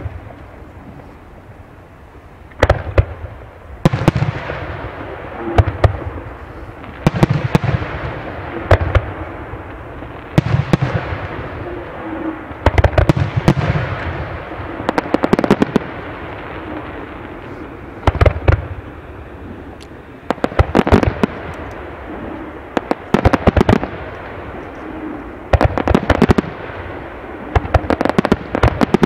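Aerial firework shells bursting one after another: deep booms about every one to three seconds, each trailing off in an echo, several followed by rapid clusters of smaller crackling pops.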